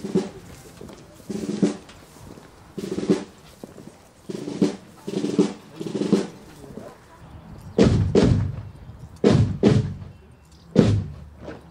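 Marching band drums beating a processional cadence: short snare-drum figures repeating every second or so, then several heavy, louder drum strokes in the last few seconds.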